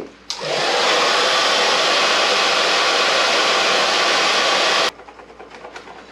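Hair dryer blowing steadily for about four and a half seconds, switched on just after the start and cut off suddenly near the end, used to warm a vinyl dirt-bike graphic where bubbles have formed.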